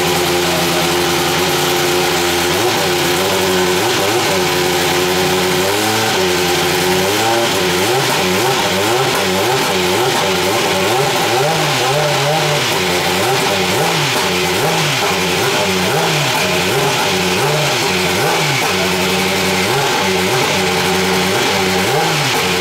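Dallara SF14 Super Formula car's Toyota 2.0-litre turbocharged four-cylinder race engine being warmed up. It idles steadily for the first couple of seconds, then is blipped again and again, its pitch rising and falling with each rev.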